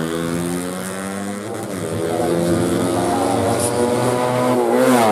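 Four-stroke 130cc underbone race motorcycle engine running hard at high revs. Its pitch dips and recovers about a second and a half in, climbs steadily, then drops and rises again sharply near the end.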